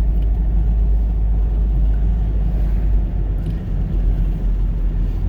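Van driving along the road: a steady low rumble of engine and road noise.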